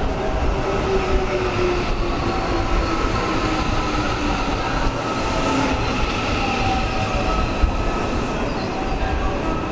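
Electric commuter train moving past along the platform: a steady rumble of wheels on rail under several whining motor tones, some slowly falling in pitch.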